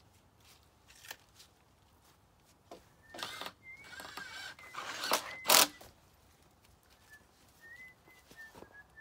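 Stiff white vinyl skirting panels being handled: a few seconds of scraping and clattering, ending in a sharp knock about five and a half seconds in. Faint short high chirps come before and after.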